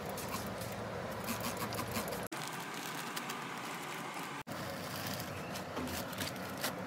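Short spritzes from a hand-held trigger spray bottle misting plants, mixed with rustling of a plastic bag, over a steady background hiss. The sound cuts out abruptly twice, about two and four and a half seconds in.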